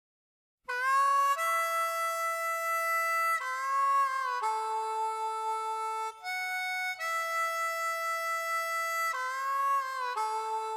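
Solo harmonica playing a slow melody of long held notes, several bent upward as they start. It comes in just under a second in, after silence.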